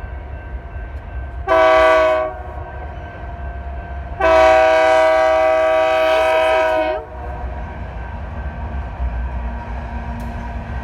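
BNSF locomotive chord horn sounding a short blast and then a long blast of about three seconds, over the steady low rumble of the passing train.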